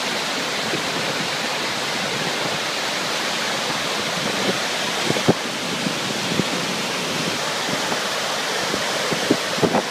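Mountain waterfall pouring down a rock face: a steady, even rush of falling and cascading water. A few brief thumps cut through it about halfway and near the end.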